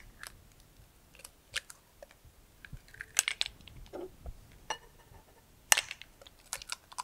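Eggs cracked one after another against the rim of a bowl: a scatter of sharp eggshell cracks and crunches, in small clusters about three and six seconds in.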